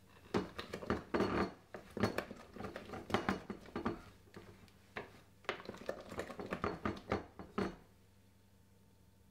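Wooden spoon knocking and scraping against a glass mixing bowl while thick chocolate cake batter is beaten, in quick irregular strokes that stop about eight seconds in.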